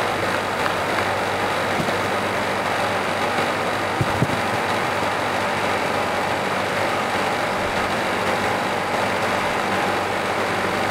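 Steady mechanical hum and rushing noise of a floor-standing air-conditioning unit running in a hall, with a couple of faint knocks.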